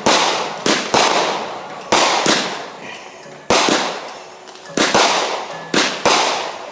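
Consumer aerial fireworks going off in an uneven string of loud bangs, about ten in all, some in quick pairs, each dying away over a second or so.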